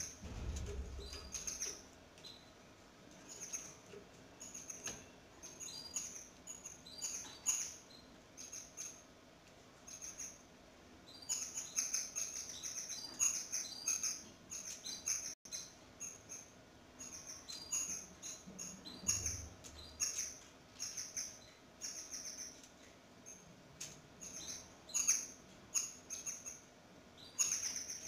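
Canaries chirping: many short, high-pitched peeps in quick runs. A low bump comes near the start and another about two-thirds of the way through.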